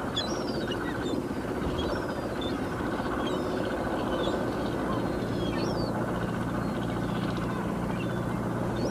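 A motor drones steadily, a deeper hum joining about five seconds in, with birds calling in short high chirps over it.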